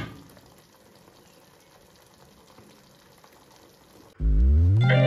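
Pots of mince-and-potato stew and creamed spinach simmering quietly on the stove, a faint bubbling after a short clatter at the start. A little over four seconds in, loud music cuts in with a rising slide in the bass.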